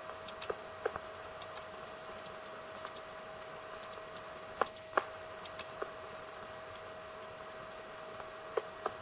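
Faint steady whine with irregular clicks and pops scattered through it, the two loudest about four and a half and five seconds in: the crackle and hum of a 1937 film soundtrack during a passage without dialogue.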